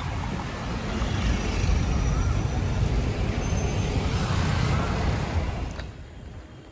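Road and engine noise from riding in a moving vehicle through city traffic, a steady low rumble. It drops sharply to a quieter hum about six seconds in.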